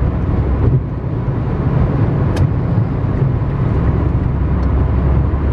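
Road noise and engine rumble from inside a moving car: a steady low drone of tyres and engine.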